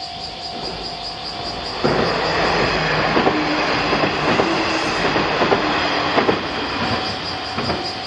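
Japanese level-crossing warning bell ringing in a steady repeating pattern as a diesel railcar train passes over the crossing. The train arrives suddenly about two seconds in, its wheels clacking over the rail joints, and covers the bell for about four seconds. Then it falls away and the bell is heard again, with a last few wheel clacks near the end.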